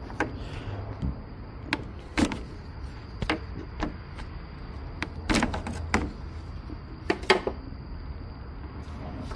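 Irregular metallic knocks and clanks of hand tools being handled and struck during car repair work: about a dozen separate hits at uneven intervals, with a cluster a little past the middle and a sharp one near the end.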